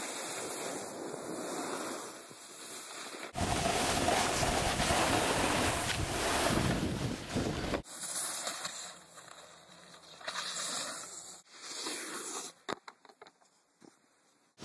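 A snowboard sliding and scraping over packed snow, with wind rushing over the microphone. The noise changes abruptly twice and is loudest in the middle stretch; a few sharp knocks come near the end.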